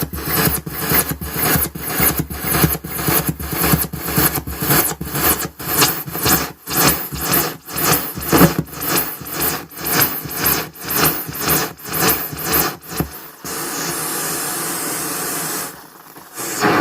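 No-input mixer feedback loop, the mixer's aux send patched back into a channel input, pulsing in a fast noisy rhythm of about three pulses a second. About thirteen seconds in it changes to a steady hiss, then drops out briefly near the end.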